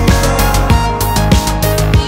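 Background electronic music with a heavy bass line and a steady drum beat, a hit about every 0.6 seconds.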